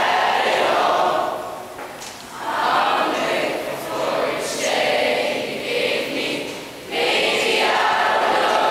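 A mixed choir of teenage boys and girls singing together, in sung phrases with short breaths between them about two seconds in and again near the end.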